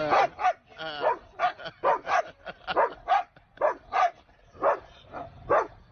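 Siberian husky barking over and over in short calls, two or three a second, some with a wavering pitch.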